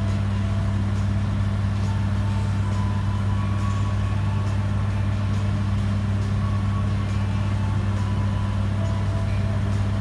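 Steady low drone of a train standing idle at the station platform, holding one level and pitch throughout.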